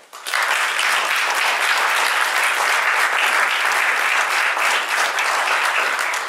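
Audience applauding, a dense steady clapping that starts just after the beginning.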